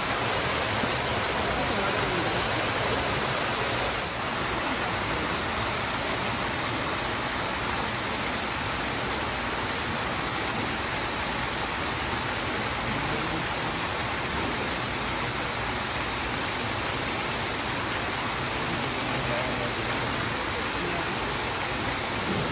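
Steady rushing of a waterfall pouring into a pool.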